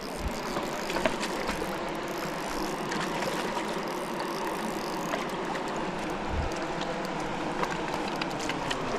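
River water running over rocks: a steady rushing hiss with a few faint clicks.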